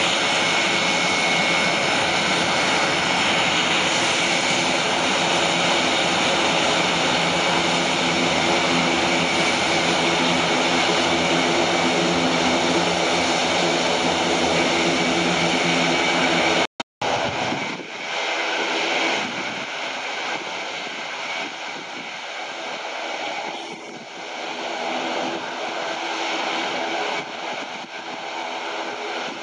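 Airbus A400M's four TP400 turboprop engines running as it taxis, a loud steady drone with several propeller tones. After a brief dropout about 17 s in, the sound is quieter and less even.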